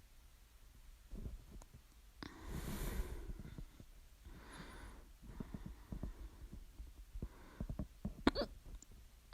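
A person with hiccups breathing audibly, with one sharp hiccup about eight seconds in.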